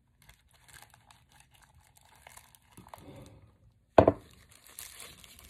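Plastic zip-top bag crinkling and crackling as fingers rub inside it, soaking in polish remover. One sharp thump about four seconds in.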